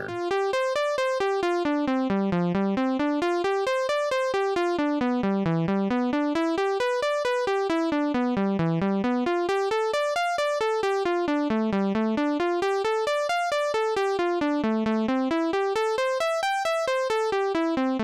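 Software synthesizer (Logic Pro's Retro Synth) playing a latched arpeggio from the Arpeggiator in up-and-down note order. Evenly spaced single notes climb and fall over and over, about every three seconds. The keyboard is scale-quantized to A minor, so a chord transposed from the keyboard keeps its notes in that key.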